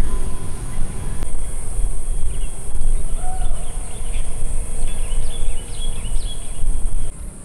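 Forest ambience: a steady high insect drone, with a run of short bird chirps in the middle, over a loud, uneven low rumble.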